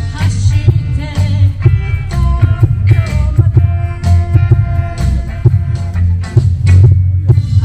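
Live band playing through PA speakers: amplified guitar over drums with a steady beat and a heavy low end.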